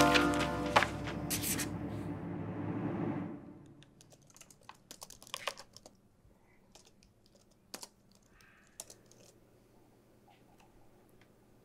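Background music fades out over the first three seconds, then scattered soft clicks of typing on a computer keyboard.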